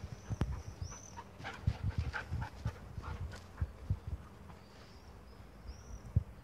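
Dogs playing: short dog noises, thickest in the middle, among dull thumps, the loudest about half a second in and near the end. A few short high chirps sound near the start and near the end.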